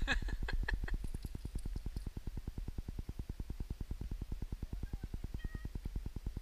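A dog gives a short yelp that falls steeply in pitch at the start, with a few sharp clicks after it. Under it is a steady low throbbing at about nine beats a second.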